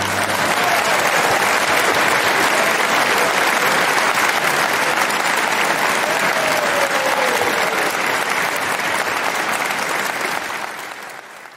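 Concert audience applauding steadily after an orchestral piece, fading out near the end.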